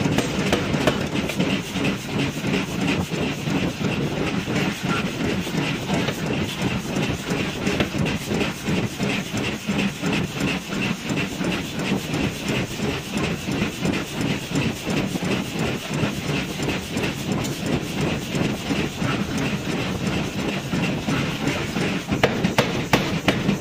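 Power forging hammer striking a red-hot steel bar on its anvil in a fast, steady run of blows, over the hiss and clatter of the machine; the blows get harder near the end.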